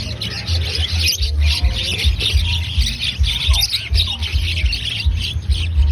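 Flock of poultry calling: many overlapping chirps and squawks, with an irregular low rumble underneath.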